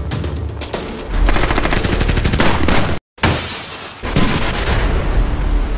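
Channel intro music with sound effects: after about a second, a fast run of sharp hits like machine-gun fire for about a second and a half, a brief cut to silence near the middle, then a noisy swell.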